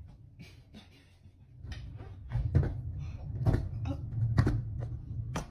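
Skateboard rolling on a tile floor: a series of irregular clicks and knocks over a low rumble of the wheels, which grows from about two seconds in.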